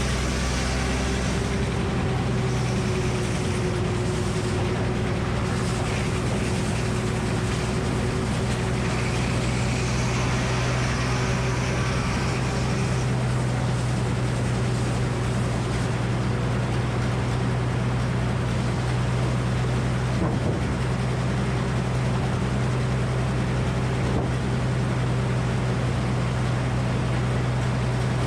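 Gasoline engine powering a Frick sawmill's 48-inch circular saw, running steadily with a low, even hum.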